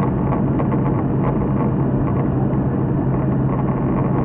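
High-wing light aircraft's engine and propeller droning steadily in flight: a constant low hum under a dense rushing noise, with a few faint clicks in the first second or so.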